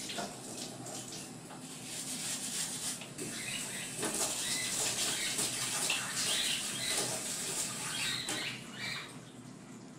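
Rustling and squeaking of a rubber balloon filled with baking soda as a hand squeezes and turns it, with short squeaks now and then; loudest through the middle seconds.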